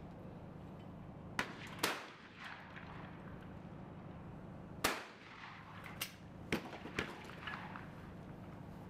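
Shotgun shots fired at clay targets: a series of sharp reports, a close pair about one and a half seconds in, the loudest near five seconds, and several more between six and seven seconds. A steady low hum runs underneath.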